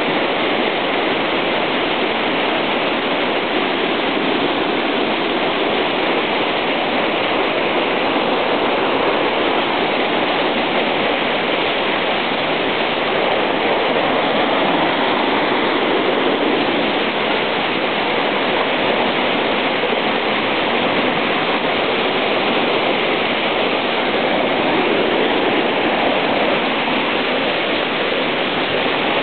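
Waterfall rushing steadily over rock boulders, heard close up from a rock in the middle of the falls.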